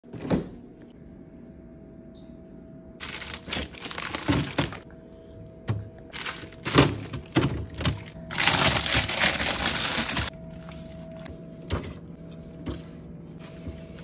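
A refrigerator door pulled open with a thunk, then food containers, bottles and plastic bags knocked and rustled as they are taken off the fridge shelves, in several bursts, the longest about two seconds, over a steady faint hum.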